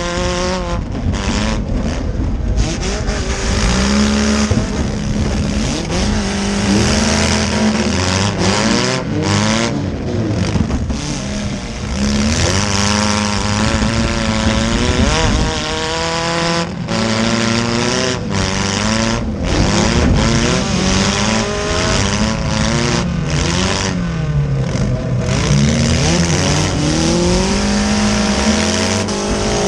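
Economy compact demolition derby car's engine revving hard, heard from inside the stripped cabin. The pitch rises and falls again and again as the car drives.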